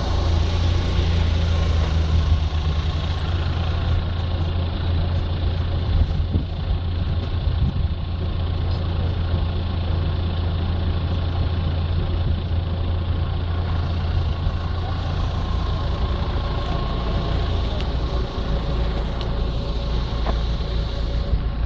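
Off-road Jeep engine running steadily at low revs.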